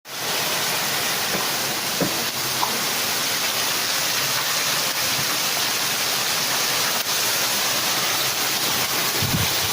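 Heavy rain falling steadily on a backyard, a dense, even hiss with a few faint drop ticks.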